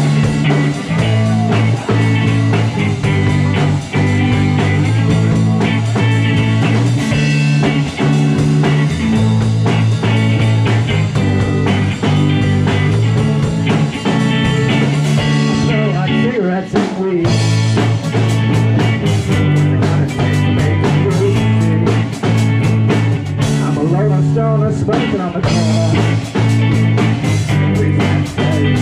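Live rock band playing a slow instrumental passage: electric guitars over a drum kit, with sustained low notes that drop out briefly around the middle.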